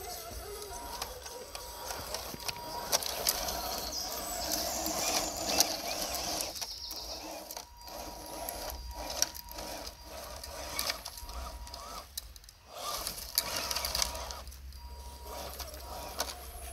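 Radio-controlled rock crawler running over rough ground: a faint thin whine from its small electric drivetrain that comes and goes, with irregular clicks and crunches from the tyres and chassis on rock.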